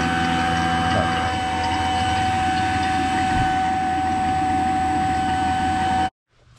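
Fieldpiece VP85 vacuum pump running steadily while evacuating an air-conditioning system: a constant motor hum with a fixed high-pitched whine, cut off abruptly near the end.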